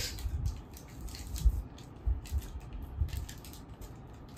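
Soft handling sounds of a rubber tourniquet being tied on an arm and a syringe pack being handled: faint rustling with irregular low thumps, the loudest about a second and a half in.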